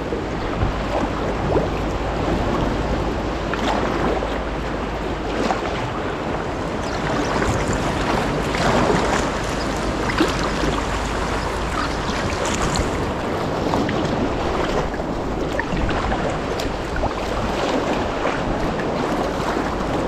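Sea water sloshing and splashing around a sea kayak as it is paddled along, with irregular splashes from the paddle strokes. Wind rumbles on the microphone for the first third or so.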